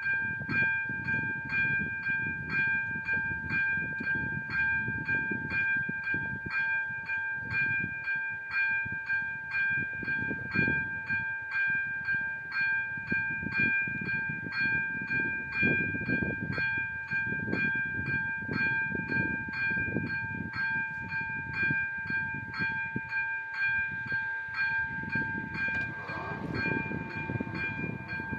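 Czech level-crossing warning bell ringing steadily, about two strikes a second, over the low rumble of a train passing the crossing.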